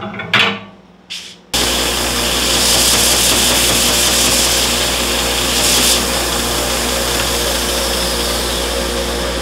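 A few knocks as the jig is set on the fingerboard radius sander, then about a second and a half in the sander switches on. It runs loud and steady, with a low hum, while it levels the fingerboard over the glued-in inlays.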